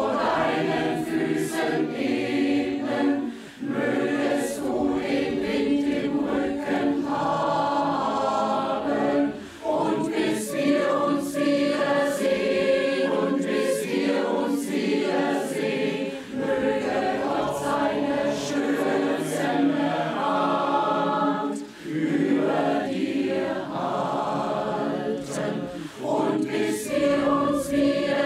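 Large mixed choir of women's and men's voices singing together, the phrases broken by short pauses every few seconds.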